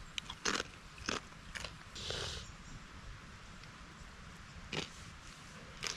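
A person biting and chewing crunchy crackers: a few sharp, irregular crunches with mouth noises between them.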